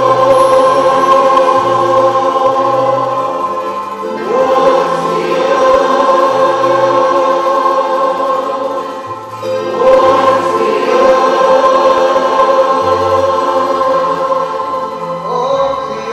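A choir singing a slow sacred hymn in long held chords, with the phrase changing about every five to six seconds.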